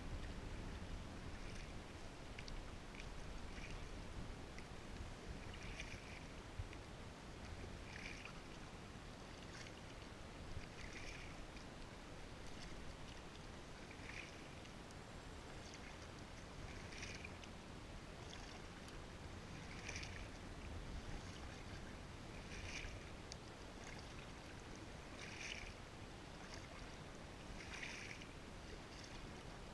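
Kayak paddle blades dipping into the water, a short splash about every three seconds in an even stroke rhythm, over a steady low rumble.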